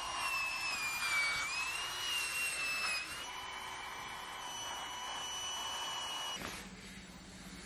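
Small electric air pump inflating an inflatable sleeping pad: a high motor whine that wavers and dips in pitch, then holds steady and cuts off suddenly about six seconds in. A faint low hum is left after it stops.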